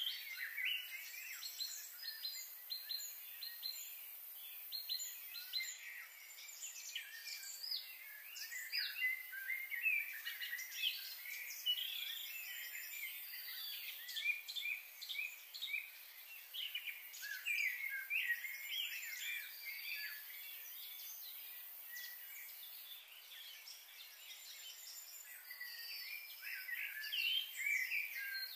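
Many birds chirping and singing together in short, high, overlapping calls, over a faint steady high hiss.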